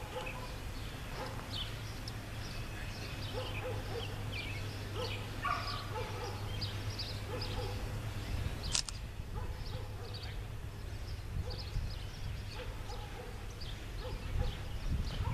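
Songbirds chirping and singing, many short quick calls, over a low steady rumble, with one sharp click about nine seconds in.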